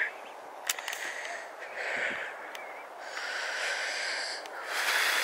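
A person breathing audibly close to the microphone while walking, several drawn-out breaths about a second long each, over a faint steady hiss.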